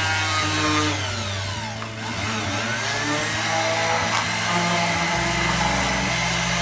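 Electric power tool motor running, winding down about a second in, then spinning back up to full speed and running steadily.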